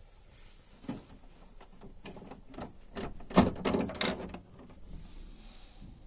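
A run of plastic clicks and knocks, loudest about three and a half seconds in, as the casing and lower filter compartment of a SANG PD12-DAR dehumidifier are handled.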